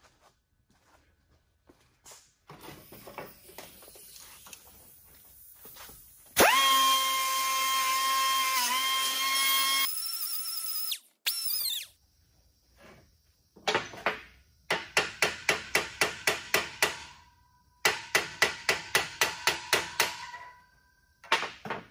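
Pneumatic cut-off tool with a small abrasive wheel whining at full speed with a hiss of air, dipping briefly as it bites into a steel rivet head on the rake, then spinning down after about four seconds. Later come two runs of quick metallic taps, about four or five a second.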